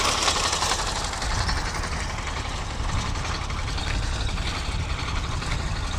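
Tractor engine running steadily, a dense low rumble with a constant noisy hiss above it.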